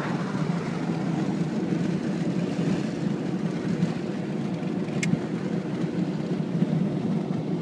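Steady rushing of wind noise over the road and engine drone of a car moving at speed, heard from inside the cabin. A single sharp click about five seconds in.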